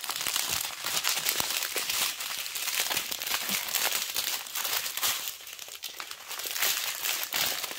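Thin plastic bags of diamond painting drills crinkling and rustling as they are handled and sorted, a continuous crackling.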